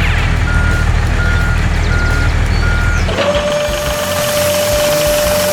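A construction machine's engine running while its reversing alarm beeps four times, about one beep every 0.7 s. About three seconds in, the engine sound stops and a long, steady tone follows.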